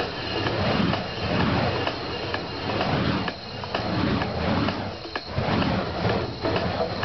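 Flaming wicks of a spinning puppy hammer fire prop whooshing through the air in repeated rushing swells.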